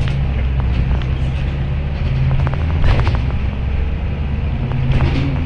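Engine hum and road noise of a moving vehicle heard from inside the cabin: a steady low drone with scattered clicks and rattles.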